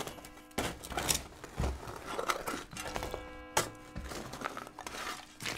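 A series of irregular knocks and rustling scrapes, about half a dozen, over a faint steady hum.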